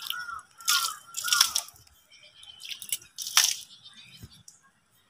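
Three short, hissy blasts of air forced out through the nose to clear snot, the second the loudest, with a faint repeating chirp under the first two.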